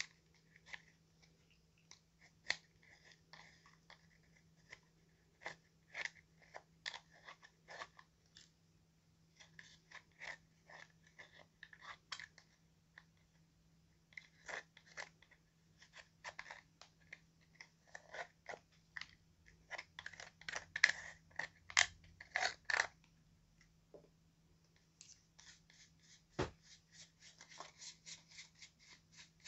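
Pressed highlighter powder being scraped and crumbled out of its plastic pan with a thin stick: irregular dry crunching and scratching, with crumbs falling. Near the end come quicker, lighter sweeping strokes of a makeup brush across the pan.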